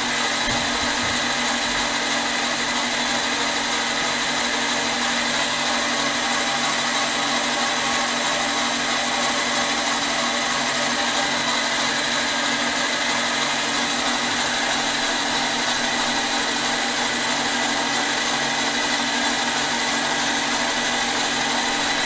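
Mini lathe running steadily, its motor and gear train giving an even whine with no change in speed.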